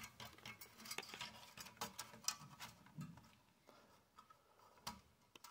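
Faint, scattered light clicks and taps of a CPU tower cooler's plastic fan and wire retention clips being handled against the metal heatsink, thinning out to near silence about halfway through with a few last ticks near the end.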